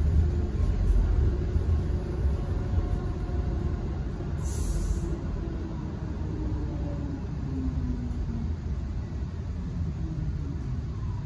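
Inside the passenger cabin of a Škoda ForCity Smart Artic tram running along its track: a steady low rumble with a faint motor whine that slides in pitch, and a brief high hiss about four seconds in.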